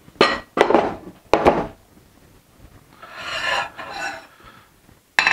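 Aluminium rails and gantry parts of a laser engraver kit being handled on a wooden table: a few knocks in the first second and a half, then a longer scraping slide about three seconds in, and another knock near the end.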